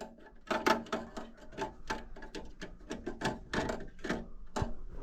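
Quick, irregular clicking and clattering of sheet-metal furnace parts being handled and disconnected, many small knocks in a row.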